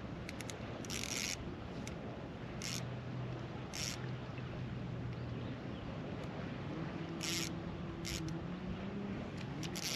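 Fishing reel drag buzzing in short bursts, about six times, as a hooked fish pulls line. A low steady motor hum runs underneath and shifts higher partway through.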